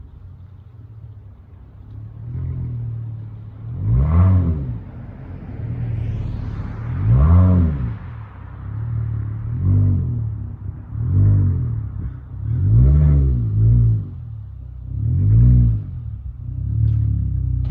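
Dodge Charger SXT's V6 through a Flowmaster Outlaw exhaust, running at low revs and rising and falling in pitch about seven times with short bursts of throttle. A few faint crackles come from the exhaust near the end.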